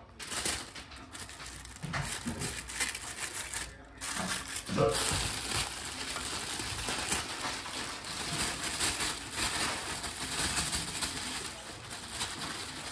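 Clear plastic oven roasting bag crinkling and rustling while roasted chicken wings and potato chunks are tipped out of it into a glass dish, with a dense, continuous crackle through most of it.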